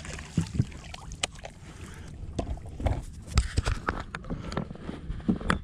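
Small splashes and water sloshing against a boat's side as a bass is held in the lake by hand and released. Scattered knocks and taps on the hull run throughout, the loudest about three and a half seconds in.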